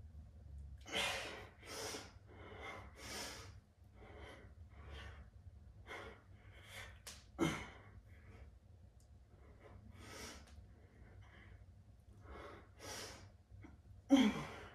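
A man breathing hard through a set of bicep curls: sharp, forceful exhales about once a second, with a short grunt of effort about halfway through and a louder one near the end.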